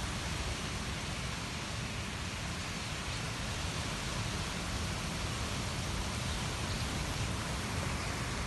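Steady rushing hiss, like heavy rain, from a vast flock of common starlings wheeling overhead in a murmuration: thousands of wings and calls blended into one even sound.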